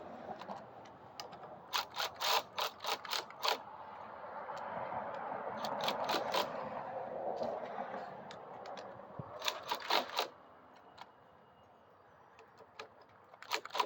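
Runs of sharp ratchet-like clicks from a hand tool working on a minibike's brake lever, about three or four a second, near the start and again around ten seconds in. A softer steady whirring noise fills the stretch between them.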